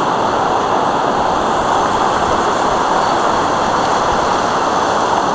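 Waterfall on a mountain stream, a steady loud rush of water, swollen with snowmelt as the speakers suppose.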